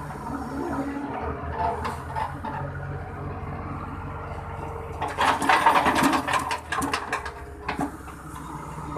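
Excavator's diesel engine running steadily under hydraulic load, heard from the cab. About five seconds in there is a louder stretch of rattling and clattering as the bucket and arm work the soil.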